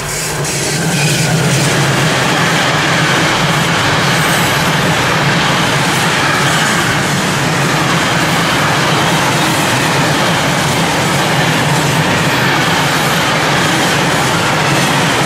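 Freight train passing close by at speed. A DB Class 185 electric locomotive goes by over the first second or two, then a long rake of intermodal container wagons rolls past, a loud, steady noise of wheels on rail.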